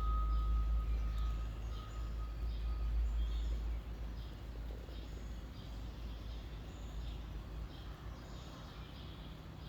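Small birds chirping repeatedly over a low engine rumble that drops away about four seconds in. A faint steady high tone sounds for the first three seconds.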